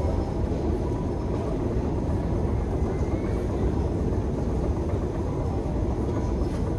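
Deep metro escalator running: a steady low rumble with a faint steady hum above it, in the long echoing escalator shaft.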